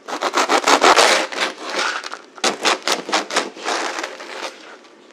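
A long knife sawing back and forth through the hard crust of a homemade campagne loaf, a quick crackling scrape. It comes in two runs of strokes, the second starting about two and a half seconds in and fading near the end.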